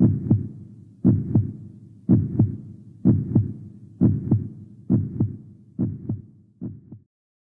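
Heartbeat sound effect: low paired lub-dub thumps about once a second. The last two beats are fainter, and the beating stops about seven seconds in.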